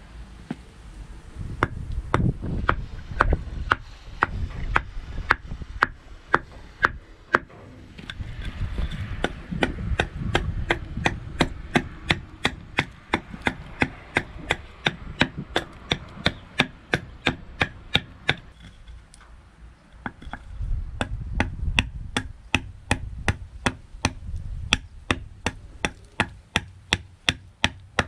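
Large knife hewing a birch spoon blank braced on a wooden chopping block: a steady run of sharp wooden chops, about two to three a second, with a brief lull about twenty seconds in.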